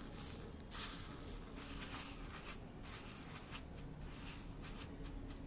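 Faint, uneven rustling and crackling of dry vermicelli strands as fingers press an egg-coated chicken cutlet into them.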